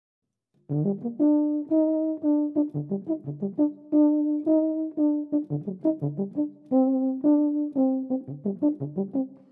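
A solo brass instrument plays a lively melody of separate notes, short ones mixed with a few held ones, starting just under a second in.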